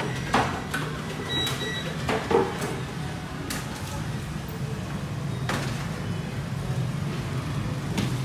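Scattered knocks and clinks of a metal ladle and steel mixing bowl while cupcake batter is portioned, the sharpest about half a second and two seconds in, over a steady low hum.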